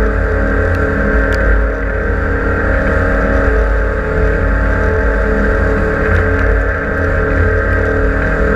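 Engine of a 6.95 m aluminium catamaran fishing boat running steadily on sea trial, a constant drone over a deep rumble.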